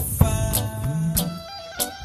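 Background music: a song track with drum hits and held notes.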